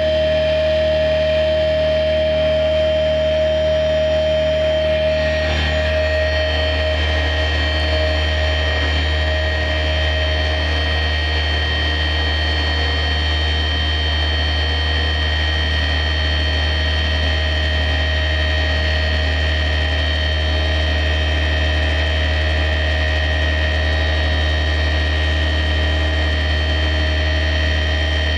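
Electric guitar feedback through amplifiers, held as a steady drone of several sustained tones over a low hum. A strong middle tone fades away between about five and ten seconds in, while the higher tones ring on.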